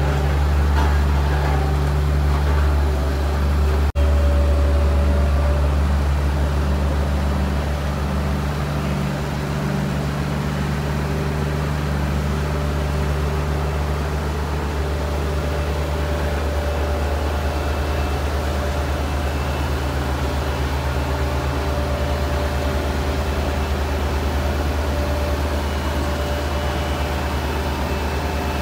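Heavy diesel road-construction machinery running steadily: a Komatsu motor grader, then after an abrupt cut about four seconds in, a Sakai single-drum roller's diesel engine.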